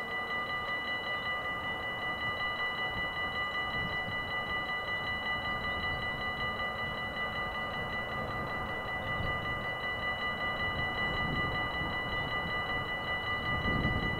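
Dutch level-crossing warning bell ringing steadily with a rapid electronic ring while the barriers are down. A low rumble builds underneath toward the end.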